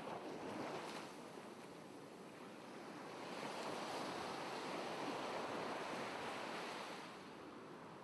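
Ocean surf washing, a steady rushing noise that swells about three seconds in and eases again near the end.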